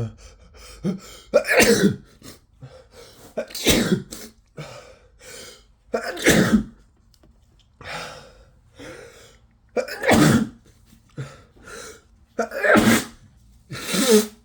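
A man's wet sneezing fit from a head cold: about six loud sneezes a few seconds apart, with quieter breaths between them.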